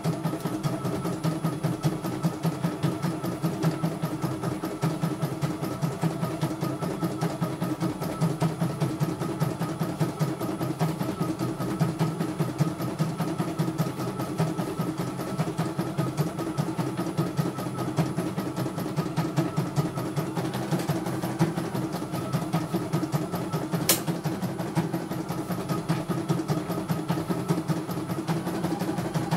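CNY E900 computerized embroidery machine stitching a design: a steady motor hum with the needle bar's rapid, even clatter, and one sharp click late on.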